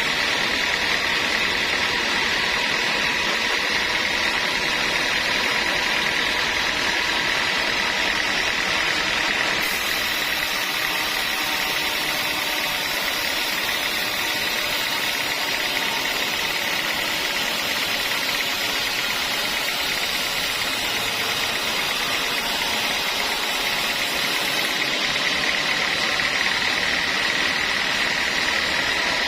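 Sawmill saw running steadily with a constant high whine, through a large log of teak. A hissy edge comes in about a third of the way through and fades again near the end.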